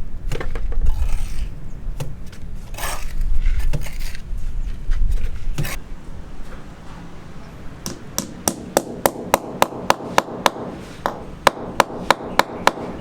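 Hammer blows on a building site. Scattered knocks and scraping come first; about two thirds of the way in, a fast, even run of sharp strikes starts at about four a second, with a short pause in the middle.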